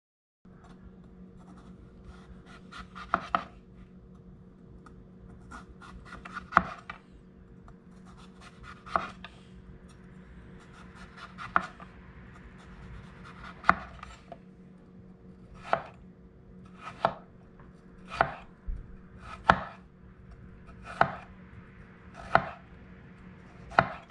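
A chef's knife slicing a cucumber on a wooden cutting board, the blade striking the board with a sharp knock every one to two seconds. A low steady hum runs underneath.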